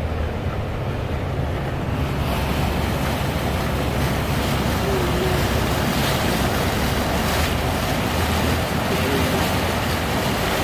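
A car ploughing through floodwater, heard from inside the cabin: a steady rushing hiss of water thrown out by the wheels over the low hum of the engine. The hiss grows brighter about two seconds in.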